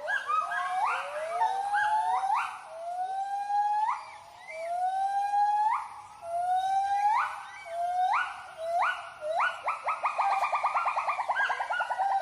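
White-handed gibbons giving their territorial hooting call: a run of loud rising whoops about a second apart that quicken and climb into a fast trill of short notes near the end.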